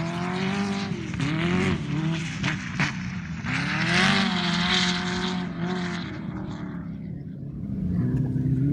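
Sand car engine revving, its pitch rising and falling again and again as it drives over the dunes. It fades somewhat about two-thirds of the way through, then grows louder again near the end.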